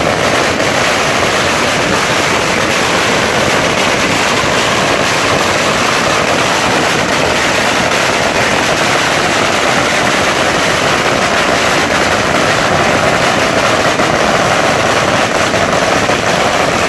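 A huge roll of Chinese fragrant firecrackers going off, a loud, unbroken crackle of rapid bangs.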